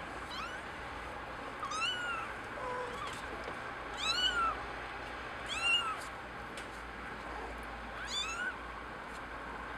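Kitten mewing: about five short, high-pitched mews, each rising then falling in pitch, spaced a second or two apart.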